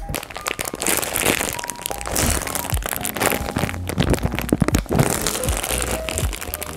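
Plastic bag of mini marshmallows crinkling and crackling as it is tugged and bitten to tear it open, with soft background music underneath.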